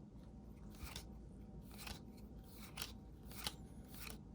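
Baseball trading cards being slid off a stack one at a time in the hand, giving faint swishes and scrapes of card on card about once a second.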